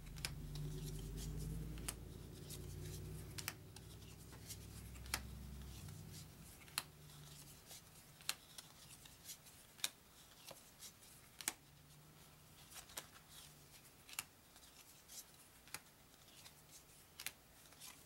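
Thick, stiff game cards being counted off one at a time from a deck, each card giving a crisp snap or click about once or twice a second. A low hum runs under the first six seconds or so.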